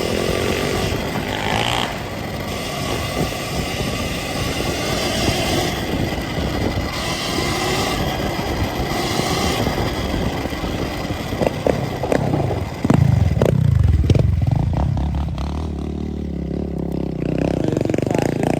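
Riding a Sur-Ron Ultra Bee electric dirt bike over rocky off-road ground: a dense rush of wind and terrain noise with a faint steady motor whine. A few sharp knocks come a little past halfway through, then a deeper motor note that climbs in pitch toward the end.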